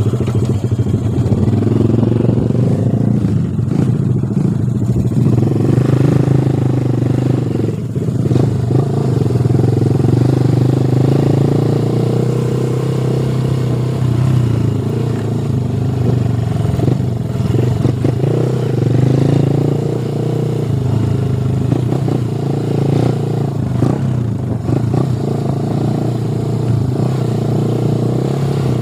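Motorcycle engine running steadily while riding, its pitch rising and falling a little with the throttle.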